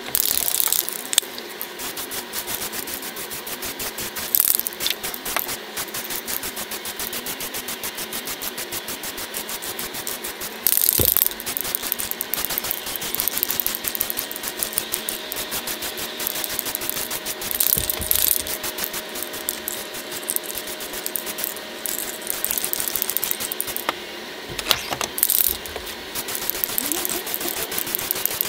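Aerosol spray-paint can spraying a base coat in several short hisses, the longest about a second. A fast, even clicking runs underneath the whole time.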